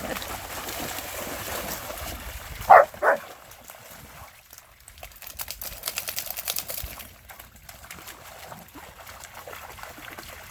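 Running creek water, with a dog giving two short barks about three seconds in.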